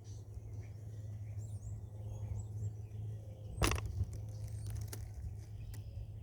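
Small birds chirping intermittently over a steady low rumble. A single sharp click or knock comes a little past the middle, followed by a few fainter clicks.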